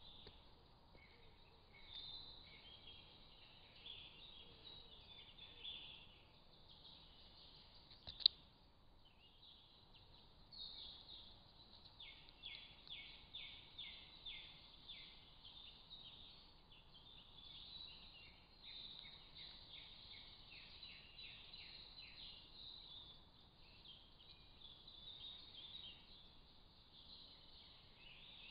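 Faint woodland birdsong: several small birds chirping and singing, with fast runs of repeated notes around twelve and twenty-one seconds in, over a thin hiss from a trail camera's microphone. A single sharp click sounds about eight seconds in.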